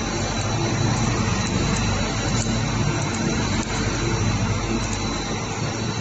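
Plastic sheet extrusion line running: a steady machine drone with a low hum and a thin, steady high-pitched tone.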